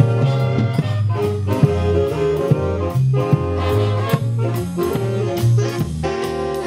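Music with a steady beat: a bass line changing notes about every half second under pitched melody notes.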